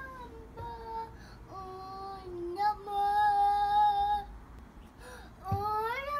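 A toddler singing a song on his own, one voice in drawn-out notes with short breaks between phrases; the longest note is held for over a second in the middle.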